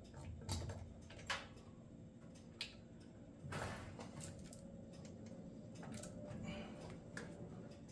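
Light clicks and rattles of a saw chain on a chainsaw guide bar as the chain is worked into place, with a longer rattle about three and a half seconds in.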